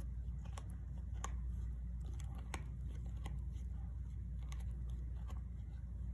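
Dog gnawing a hard chew stick: irregular crunching clicks and bites, over a steady low background hum.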